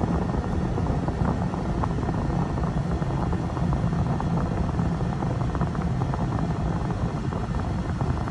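A car driving along at steady speed, heard from inside the cabin: an even, low road rumble that does not change.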